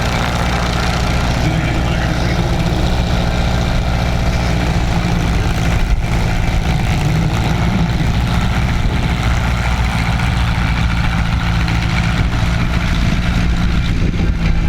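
Cessna 150E's Continental O-200 four-cylinder engine and propeller running steadily at low power: a constant low drone.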